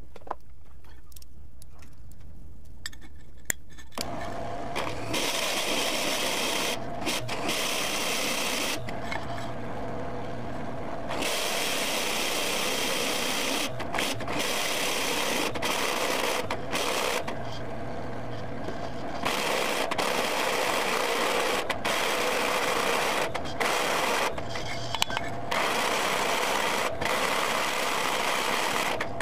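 Millrite vertical milling machine drilling steel with a twist drill bit: a low hum for the first four seconds, then a steady, louder cutting noise with a droning tone as the bit bites into the block. The cutting breaks off briefly several times, longest about ten and eighteen seconds in.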